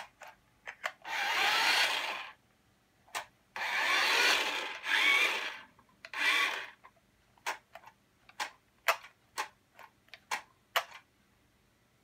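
Remote-control toy truck's small electric drive motor whirring in four bursts of about a second each, its pitch bending up and down as it speeds and slows. A string of about ten short sharp clicks follows over the last few seconds.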